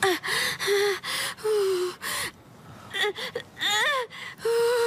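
Teenage girl in labour gasping and moaning in pain with each contraction: a run of short, breathy, pitched gasps, a brief lull about halfway, then a cry that rises and falls in pitch.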